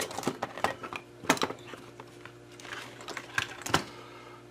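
Irregular light clicks and clatter of small parts and tools being moved about on a workbench while searching for a small alligator clip.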